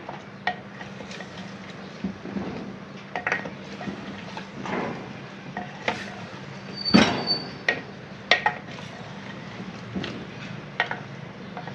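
Wooden spoon stirring chicken and potato chunks in a clay handi, with irregular knocks and scrapes against the pot; the loudest knock comes about seven seconds in.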